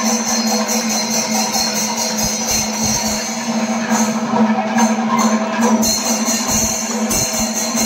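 Festival percussion music: drums beating with fast, continuous cymbal strokes over a steady held tone, typical of a Kerala temple melam.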